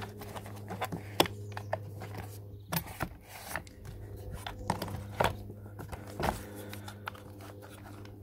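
Sharp clicks, knocks and scrapes of hard plastic parts being handled and pressed together as a pressure washer's pump is forced back into its plastic housing, over a steady low hum.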